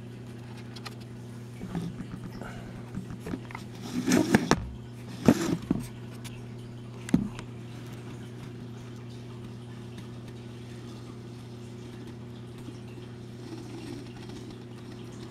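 A steady low electrical-sounding hum, with a cluster of knocks and clatters about four to six seconds in and one more knock around seven seconds.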